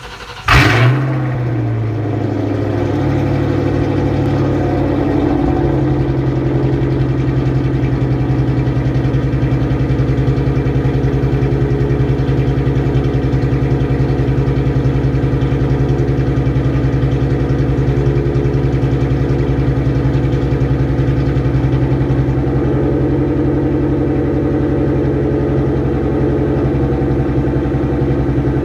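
Ford SN95 Mustang GT V8 through an SLP Loudmouth 1 cat-back exhaust, cold-started: it catches about half a second in with a loud burst, then settles into a steady, loud idle.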